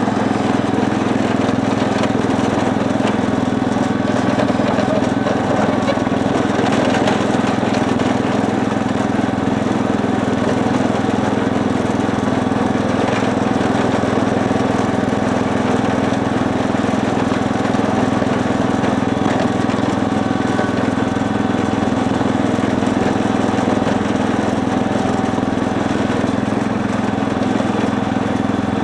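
Cub Cadet 149 garden tractor's single-cylinder Kohler engine running steadily while the tractor pushes snow with its front blade.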